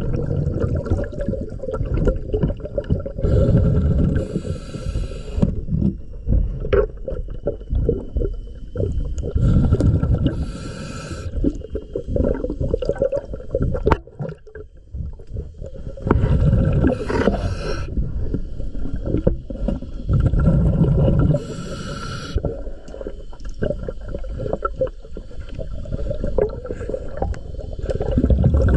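Scuba diver breathing underwater through a regulator: a hissing breath about every six seconds, with bubbling and rumbling water between breaths.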